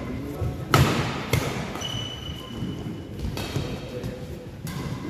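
Badminton rally: rackets striking the shuttlecock with a few sharp cracks, the loudest about three-quarters of a second in, and players' shoes squeaking on the synthetic court mat, one high squeak held for over a second in the middle.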